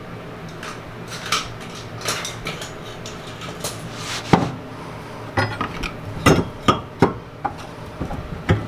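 Scattered metallic clinks and knocks of tools against a steel bracket being worked into place on a rear differential, with a few sharper knocks in the second half.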